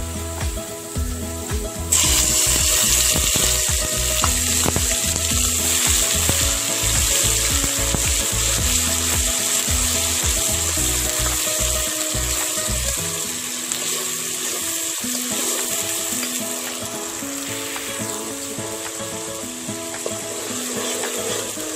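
Chopped onion and garlic frying in hot oil in a pan: a steady sizzle that jumps sharply louder about two seconds in, then slowly eases off. Background music with a low beat plays underneath, its beat dropping out about halfway through.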